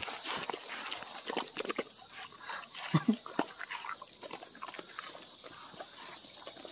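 Dogs chewing and licking watermelon up close: wet, irregular crunching and slurping of the juicy flesh in many quick clicks, with a brief low grunt about three seconds in.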